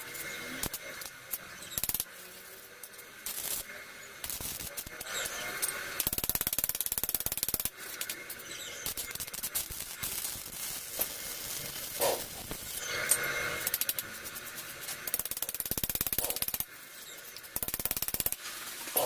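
Small two-stroke pocket bike engine on a motorized bicycle running, its rapid firing coming and going in uneven spells, louder and quieter by turns.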